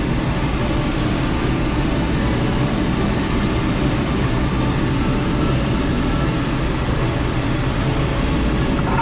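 Steady rush of airflow around the canopy of an SZD-50 Puchacz two-seat glider in flight, heard from inside the cockpit as an even, low rumble.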